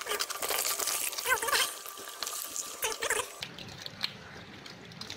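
Live fish and water tipped from a plastic bucket into a plastic colander basket: wet splashing, slapping and flopping that dies down after about three and a half seconds. Two brief wavering pitched sounds come through about a second and three seconds in.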